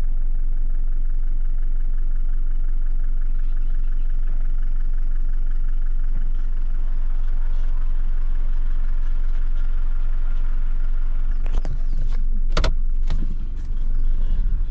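Car running, heard from inside the cabin: a steady low rumble of engine and road noise, with a few sharp knocks about twelve seconds in.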